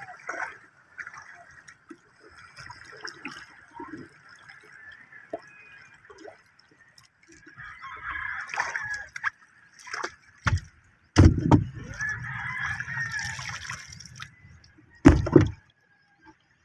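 Shallow seawater sloshing and lapping around a wooden outrigger canoe and the legs of a man wading beside it. A few sudden loud thumps cut in, the loudest about eleven seconds in and again near the end.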